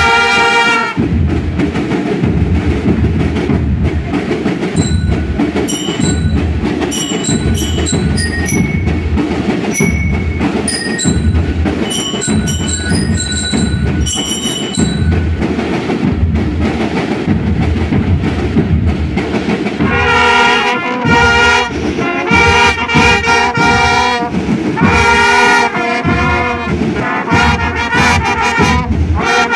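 School marching band: the brass section of trumpets and larger horns plays a loud chord, then drops out for a long drum-led passage with a few high ringing notes. About twenty seconds in, the brass comes back with short repeated phrases over the drums.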